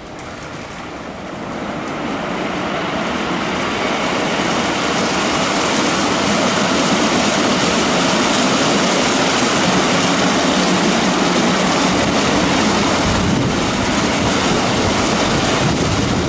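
WashTec EasyWash rollover car wash running, its rotating roof and side brushes spinning as the gantry travels: a loud, steady rushing noise that builds up over the first few seconds and then holds level.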